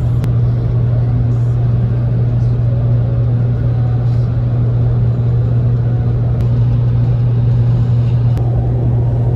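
Steady low drone of a moving vehicle, unchanging throughout, with a few faint clicks.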